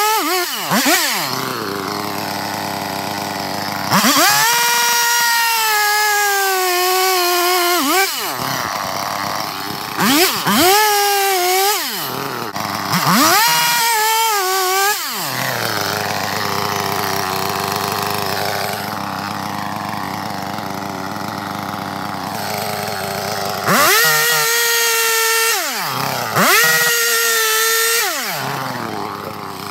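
Two-stroke chainsaw boring and back-cutting into a standing tree trunk. It runs in repeated full-throttle bursts of a few seconds, its pitch sagging a little as the chain bites, and drops back to idle between them, with one long idle stretch midway.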